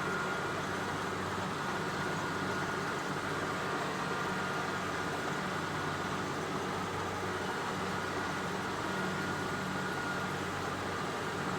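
Steady drone of a running engine at an even level, with a low hum and a faint high whine and no change in speed.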